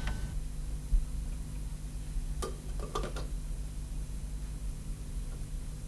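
A low, steady hum with a soft knock about a second in and a few faint clicks between two and a half and three seconds in.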